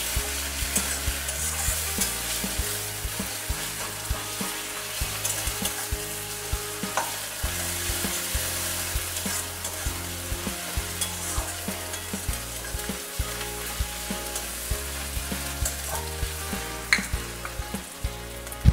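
Sliced onions and chopped garlic sizzling as they fry in oil in a metal karahi. A metal spatula stirs them, scraping and tapping against the pan, with a sharper knock near the end.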